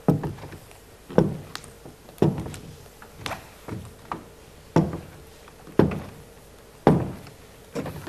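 Slow footsteps of shoes on a stage floor, about one step a second, each a sharp knock with a low thud.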